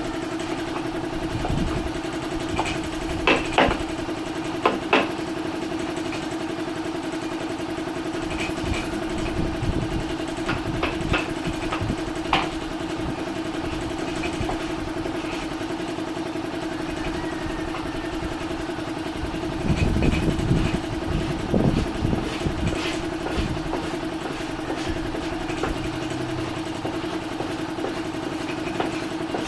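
A motor runs with a steady hum throughout. Sharp knocks and clicks come a few seconds in and again about ten seconds in, and a stretch of low rumbling with knocks comes about two-thirds of the way through.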